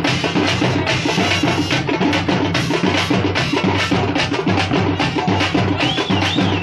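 Thappu (parai) frame drums beaten by a drum troupe in a fast, dense rhythm. A wavering high tone comes in near the end.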